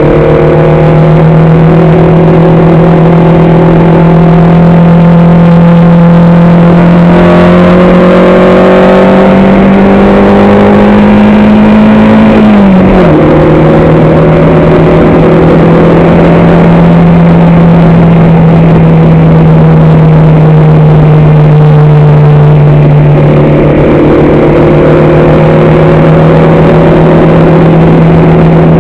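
Racing vehicle's engine heard on board, loud and running hard at fairly constant revs. Its note climbs slowly, drops sharply once about halfway through at a gear change, then holds steady again.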